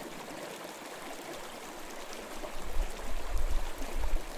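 Shallow stream running over rocks: a steady rush of flowing water. About halfway through, an uneven low rumble joins it and becomes the loudest sound.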